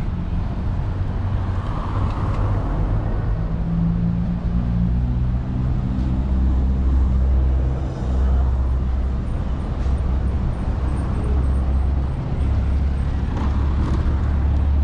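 Street traffic noise with a motor vehicle's engine running as a steady low rumble, its pitch shifting a few seconds in.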